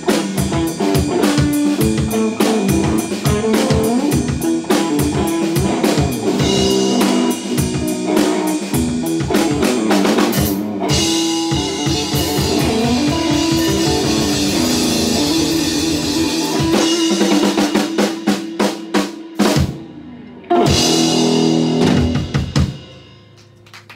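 Instrumental blues played live on electric guitar and drum kit, with dense snare and bass-drum strokes under sustained guitar notes. It ends with a few accented hits and then a last loud chord and crash, about 20 seconds in, that rings for a couple of seconds and fades out.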